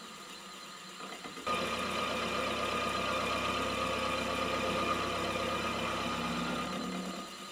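Milling machine spindle running, and about a second and a half in the end mill bites into the metal part, giving a louder steady cutting sound with several fixed tones that eases off about a second before the end.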